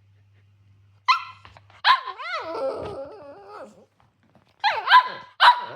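Cavalier King Charles Spaniel barking in angry protest at a too-small breakfast: a sharp bark about a second in, a second bark that runs into a long wavering, grumbling vocalization, then two more sharp barks near the end.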